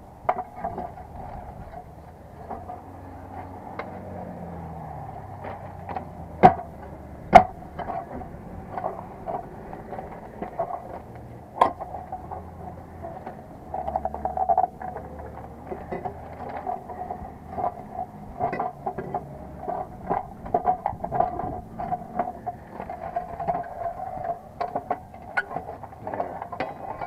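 Hand tools knocking, clicking and scraping on a rusted steel disconnect box as it is worked loose, with two sharp loud knocks about six and seven seconds in, over a steady hum.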